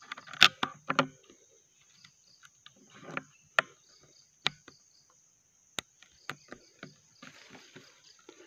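Irregular sharp clicks and knocks from handling an air rifle and its scope-mounted camera, loudest in a quick cluster in the first second and then single knocks every second or so. Underneath is a steady high-pitched insect drone.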